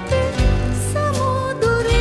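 Woman singing a Sinhala song with live band accompaniment of guitar and bass; her line glides down about halfway through and settles on a long held note near the end.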